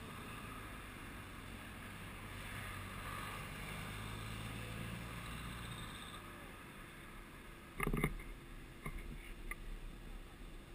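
Road traffic passing close by: cars driving past with a steady rumble of engines and tyres, fading somewhat after about six seconds. About eight seconds in there is one sharp knock, then a few fainter clicks.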